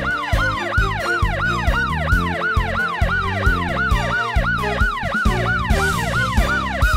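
Police car siren wailing in quick rising-and-falling sweeps, about three a second, over upbeat background music with a steady beat.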